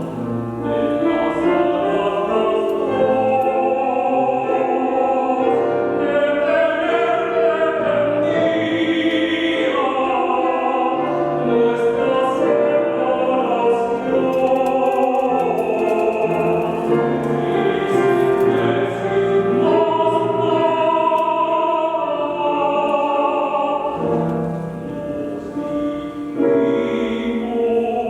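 Live classical vocal music: voices singing long, sustained lines, with several parts sounding at once.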